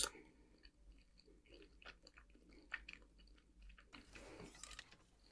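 Faint close-up chewing and small mouth clicks, scattered soft ticks with a brief soft rustle about four seconds in.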